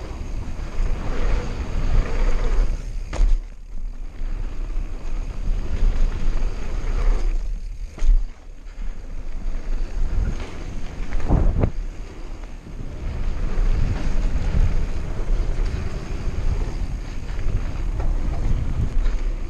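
Wind buffeting the microphone of a camera on a mountain bike riding fast down a dirt trail, over the rolling noise of the tyres and the rattle of the bike. A few sharp knocks come from bumps, at about three, eight and eleven and a half seconds in.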